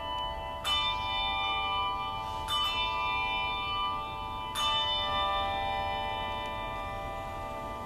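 Handbells rung by three players holding two bells each: several bells struck together three times, about two seconds apart, each chord left ringing on.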